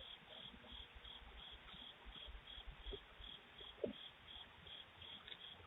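Crickets chirping faintly and steadily, about two to three chirps a second, heard through a doorbell camera's narrow-band microphone. A brief soft thump about four seconds in.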